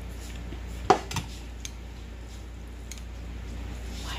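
A metal spoon and a pot clinking against a glass mixing bowl as rice and vegetables are stirred together: a sharp clink about a second in, a second one just after, then a few lighter taps.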